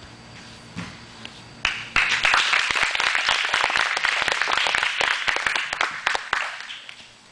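A thud about a second and a half in, then a few seconds of applause, many hands clapping, fading out near the end.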